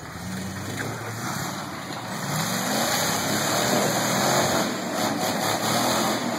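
Engine of a red Jeep CJ-bodied rock crawler revving under load as it climbs a rock ledge, the revs rising and the sound getting louder about two seconds in.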